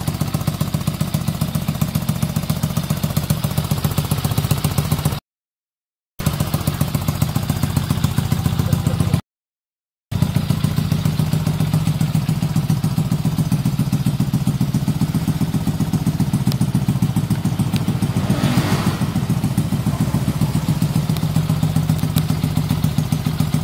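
Motorcycle engine idling steadily with a fast, even pulse. The sound cuts out completely twice for about a second, and a short burst of louder noise rides over the idle about three-quarters of the way through.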